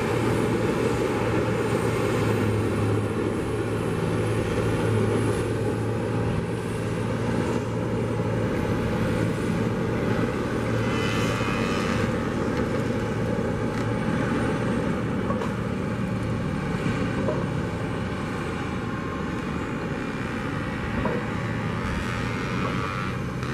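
Steady low engine rumble from distant machinery under an even outdoor background noise, with no sharp events.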